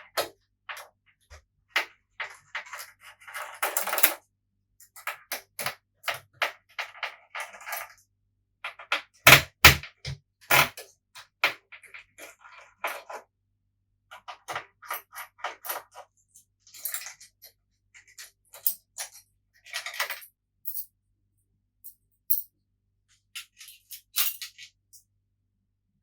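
Metal clicks, taps and short scrapes of a PS4 Pro's X-clamp being taken off and the console's parts handled, with two heavier knocks about nine and a half seconds in.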